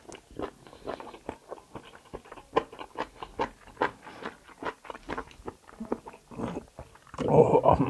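Close-miked chewing and biting of kalij pheasant meat from the curry: irregular wet smacks and clicks of the mouth, with a louder, fuller stretch near the end.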